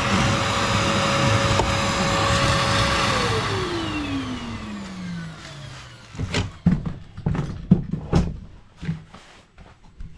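A vacuum cleaner's motor running steadily, then switched off about three seconds in, its whine falling in pitch over a few seconds as it spins down. A run of separate knocks and clatters follows.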